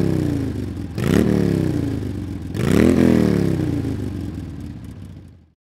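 Motorcycle engine being revved: the pitch climbs sharply and then winds slowly down, with fresh revs about one and three seconds in after an earlier one dies away, and the sound fades out just before the end.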